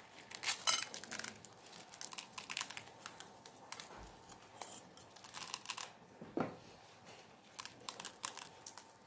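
Scissors snipping open a rubber balloon and fingers pulling the cut rubber apart: a run of short, sharp clicks and crinkles that come in several clusters.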